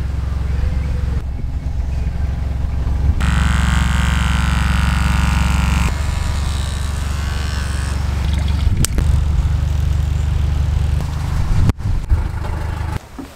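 Corded electric hair clippers buzzing steadily, louder and brighter for a few seconds partway through. The buzz breaks off abruptly near the end.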